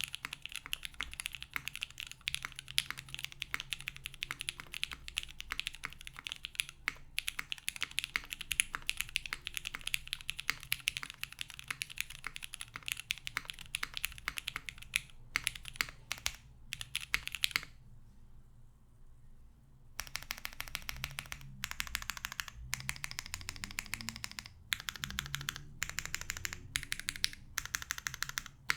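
Typing on an Alas60 mechanical keyboard with a full aluminium plate, lubed SP-Star Meteor White linear switches in Cherry top housings and GMK keycaps: a steady, fast stream of keystroke clicks. The typing stops for about two seconds roughly two thirds of the way in, then resumes in shorter runs with brief pauses.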